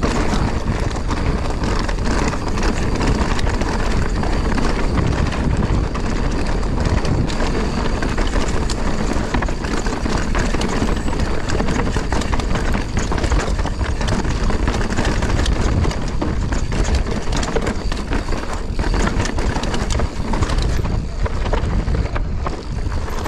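Wind buffeting the microphone and the mountain bike's tyres rumbling and rattling over a rocky dirt trail at speed, with many small knocks from stones and the bike's parts.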